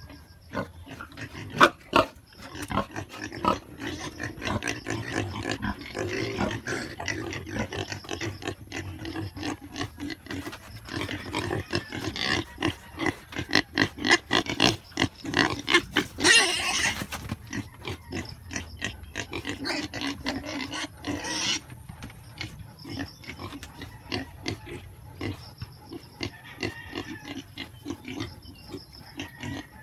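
A pen of seven-week-old piglets grunting in quick short bursts as they move about. There is one loud, harsh burst of about a second just past halfway, and a shorter one a few seconds later.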